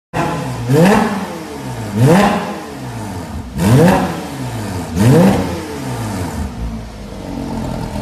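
Porsche 987.2 flat-six breathing through an ARMYTRIX aftermarket exhaust, blipped four times in quick free revs. Each rev rises sharply and drops back to a steady idle, and it idles for the last couple of seconds.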